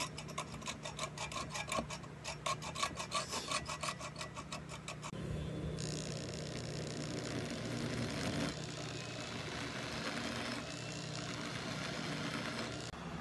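A hacksaw cutting a slit into a small rivet held in a vise, in quick, even strokes. About five seconds in, this gives way to a cordless drill running steadily while a flat file is held against the rivet spinning in its chuck, filing its head down to size.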